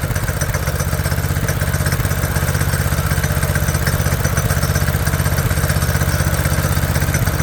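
Coleman go-kart's small single-cylinder four-stroke engine idling steadily with an even, rapid pulse, running on its newly fitted replacement carburetor.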